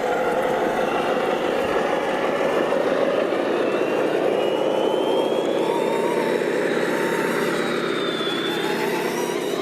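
Radio-controlled MAZ-537 scale model truck driving, its drivetrain running steadily with a thin whine that rises slowly through the middle.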